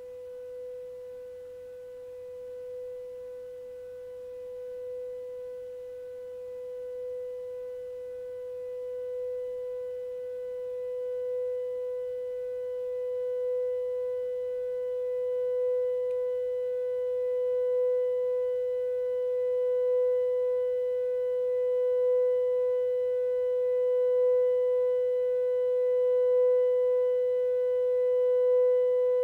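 Steady 500 Hz sine test tone through a Bugera V22 guitar amp's effect send with the digital reverb at maximum, getting gradually louder as the clean volume is turned up, with faint higher overtones. A grainy noise from the reverb processing sits underneath: the sign of noise modulation in the amp's digital reverb chain.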